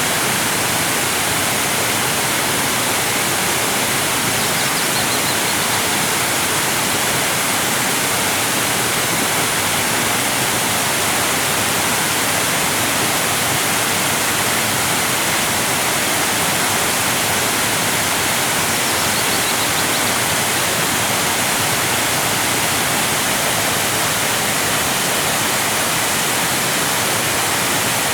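Waterfall: water cascading down, a loud, steady rush with its weight in the high hiss and no change throughout.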